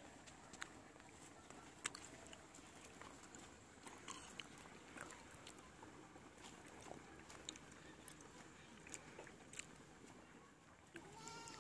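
Near silence, broken by faint scattered clicks and taps, with a short animal call near the end.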